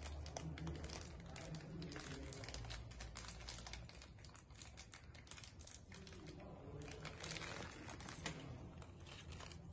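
Small clear plastic bag of M3 bolts crinkling faintly as it is handled and opened to take the bolts out.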